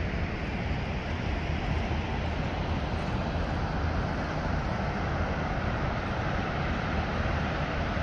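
The Rhine Falls heard from across the river basin: a steady, gentle rush of falling water.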